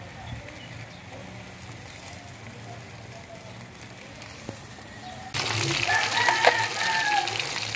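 Quiet background with a few faint bird chirps, then, about five seconds in, a sudden loud sizzle and crackle of fish frying in hot oil in a pan. A rooster crows over the sizzle for about a second.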